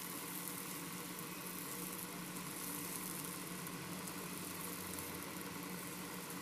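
Hot-dog sausages sizzling in a little oil on a nonstick grill pan, with a steady low hum underneath.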